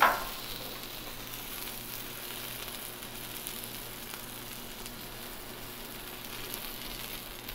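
Cornflake-breaded chicken strips frying in oil on a Blackstone flat-top griddle, a steady, even sizzle.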